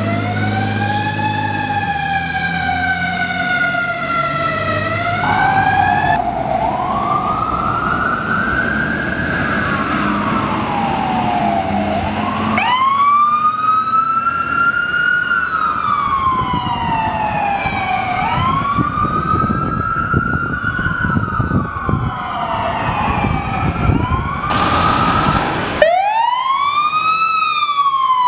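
Emergency vehicle sirens of fire engines and an ambulance responding: repeated wails that rise quickly and fall slowly, one siren giving way suddenly to another several times. A fire truck's engine runs underneath in the first few seconds.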